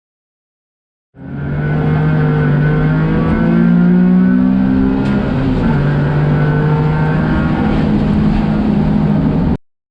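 Daihatsu Esse's small three-cylinder engine pulling under load, its pitch climbing slowly, then dropping a step and holding steady before cutting off suddenly.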